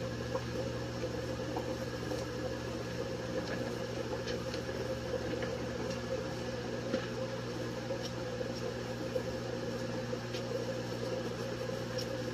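A steady mechanical hum of a small motor, with a few faint clicks scattered over it.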